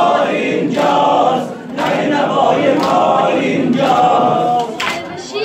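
A group of men chanting a mourning lament (noha) in unison, in short rhythmic phrases of about a second each. Sharp slaps of chest-beating fall between the phrases.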